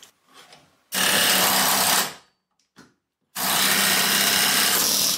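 Pneumatic air chisel hammering in two bursts, about a second and two seconds long, driven into the gap between a stuck front wheel bearing and its hub housing to free it.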